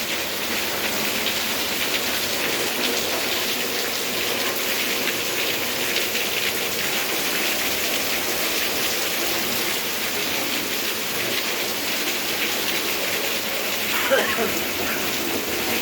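Heavy rain falling steadily, a dense even hiss full of small drop hits.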